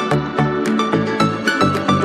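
Electronic background music with a steady beat: a pulsing bass line of about four notes a second under held synth tones and regular high ticks.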